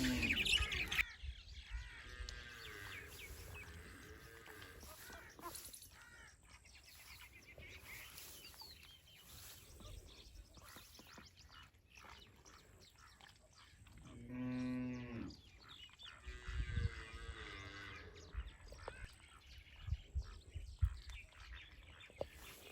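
Cattle mooing: one drawn-out call lasting about a second and a half, over faint bird chirps and a few scattered knocks.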